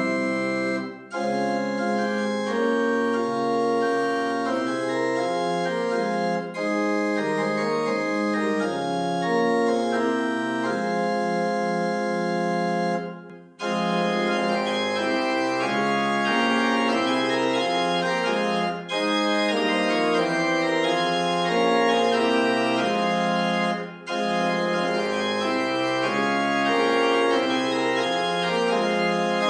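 Organ playing slow, sustained chords in phrases, with brief breaks between phrases about a second in, near the middle, and a little over three-quarters through.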